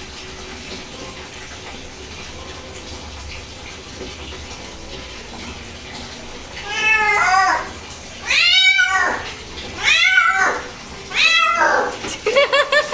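A wet cat being lathered for a bath meows loudly in protest, starting about halfway through. It gives four drawn-out meows about a second and a half apart, each rising then falling in pitch. A last, choppier one breaks into quick stutters near the end.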